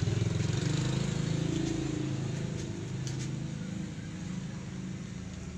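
A motor running steadily with a low hum, slowly getting quieter in the second half.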